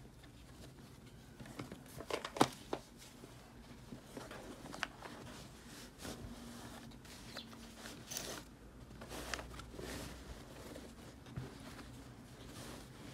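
Canvas tote bag and fabric rustling and brushing as they are handled, with scattered soft clicks and one sharp knock about two and a half seconds in.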